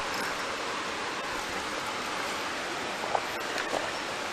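Small river running over rocks: a steady rush of flowing water.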